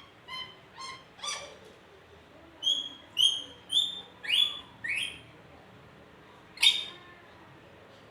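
A lory (nuri parrot) calling: a string of short, sharp calls, a few softer ones at first, then a louder run of five, about two a second, and one loudest call near the end.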